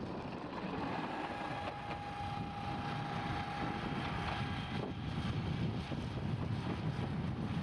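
Small self-built narrow-gauge rail vehicle running along the track, with a steady high whine that sets in about a second in and stops about five seconds in, then a deeper running rumble.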